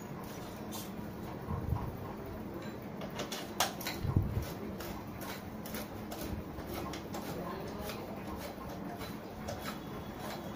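Scattered light clicks and knocks of hand tools and metal parts being handled while the fan's stand is assembled, over a steady low hum.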